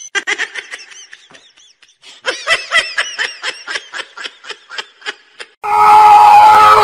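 High-pitched giggling laughter in quick short pulses: a weaker run at first, then after a short pause a louder run of about four giggles a second. It cuts off near the end as a louder, steady sound takes over.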